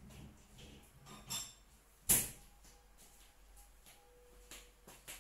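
Light handling of kitchenware, a plastic sieve and spatula over a mug: a few faint clicks and one sharp knock about two seconds in.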